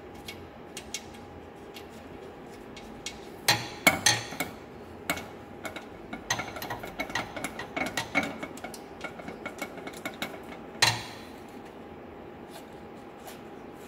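Ratchet wrench clicking and metal clinking against a steel rock-light bracket as its bolt is run in, in irregular bursts with a dense run of clicks in the middle and one sharp clank about three quarters through. A faint steady hum sits underneath.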